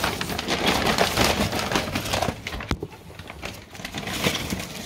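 A paper carrier bag rustling and crinkling as hands rummage through it, with cardboard boxes of fishing lures knocking together. The crackling is dense at first, then thins to scattered rustles and taps in the second half.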